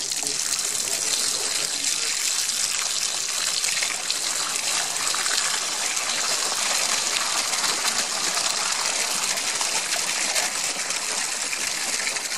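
Water gushing steadily out of a flexible hose from a fish-transport tank into a plastic bucket, filling it.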